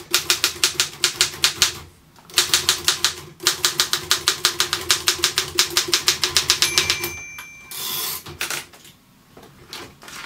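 Royal KMM manual typewriter typing fast, with crisp keystrokes at several a second and a brief pause about two seconds in. Near the end the margin bell rings once, followed by a short slide of the carriage being returned.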